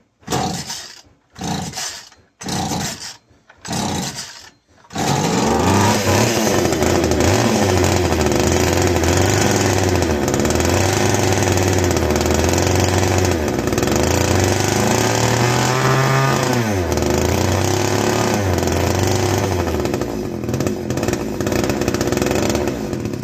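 Castor 330 Antivib two-stroke chainsaw being pull-started: four short pulls on the starter, then it catches about five seconds in and runs for about eighteen seconds, its engine speed surging up and down, revving higher once near the end, before it cuts off suddenly. It is an old saw being kept running by fuel poured straight into the carburettor.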